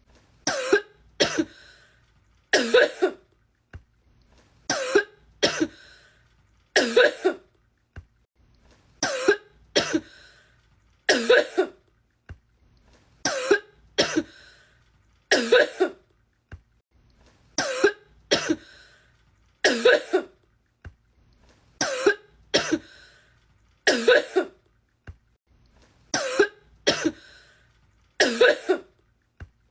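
A woman coughing in a fit: two quick coughs, then a longer one. The same group repeats about every four seconds as an edited loop.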